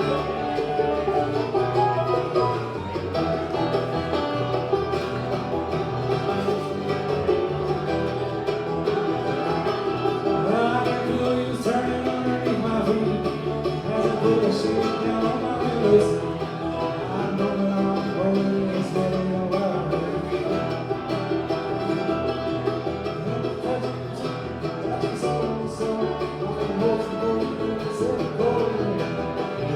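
Bluegrass band playing live, an instrumental stretch led by banjo over acoustic guitar.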